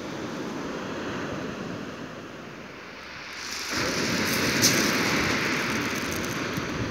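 Sea surf breaking on a shingle beach, with wind buffeting the microphone. The surf swells louder about halfway through.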